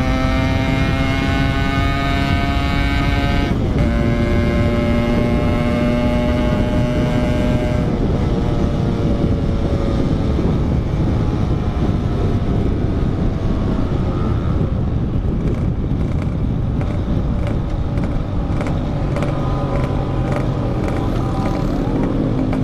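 Yamaha RX-King 135cc two-stroke single-cylinder motorcycle engine pulling under load, its note climbing slowly and dipping once about three and a half seconds in at a gear change. After about eight seconds the engine note fades under steady wind and road rush.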